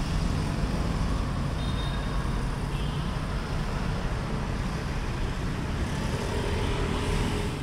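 Steady city street traffic noise, an even rumble of cars and motorbikes, heard from a moving cyclo.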